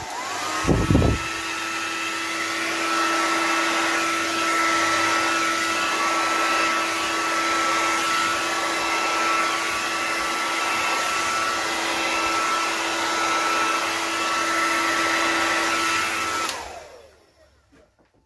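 Hair dryer running steadily: a loud rush of air with a steady whine that rises in pitch as it switches on just after the start. There are a couple of low knocks as it is handled about a second in, and it is switched off and winds down near the end.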